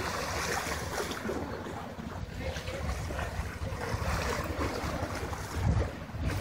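Wind noise on the microphone, a gusty low rumble with a stronger gust near the end, over the wash of sea water against the rocks.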